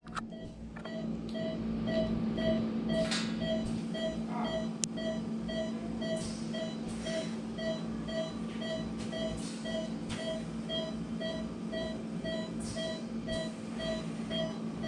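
Patient monitor beeping with each heartbeat of an anaesthetised dog, short even beeps of one pitch at about two a second, over a steady low equipment hum, with a little rustling of gown and gloves.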